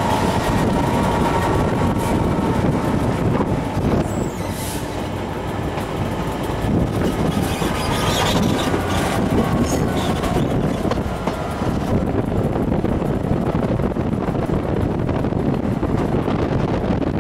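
Class 67-hauled passenger train running at speed, heard from an open carriage window: steady rumble of wheels on rail mixed with wind rush. Brief high-pitched wheel squeals come and go a few times, about four seconds in and again around eight to ten seconds.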